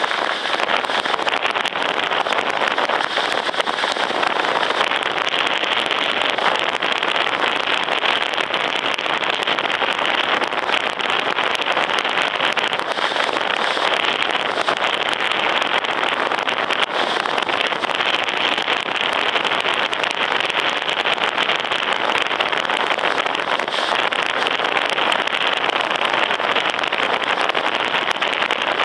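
Steady rushing noise of a vehicle driving along a dirt track at racing pace, with a fine rapid crackle mixed through it.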